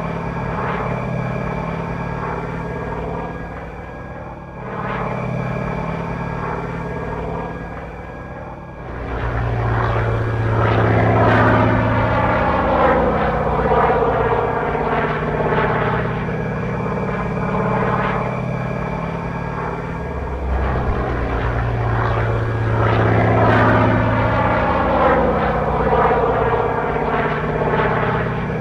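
RC Pitts 12S model biplane flying, its onboard sound-effects unit playing a radial-engine sound over the propeller noise. It makes two close passes, the first about ten seconds in and the second near the end, each louder and dropping in pitch as the plane goes by.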